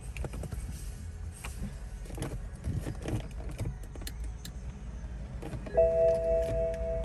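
Scattered clicks and knocks from handling things inside a car. About six seconds in, a steady electronic tone of several pitches starts and keeps sounding.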